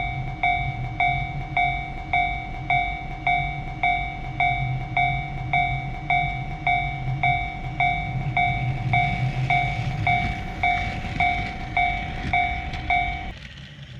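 Japanese railroad crossing warning bell ringing, struck evenly just under twice a second, over the low rumble of a train running past; the bell stops shortly before the end.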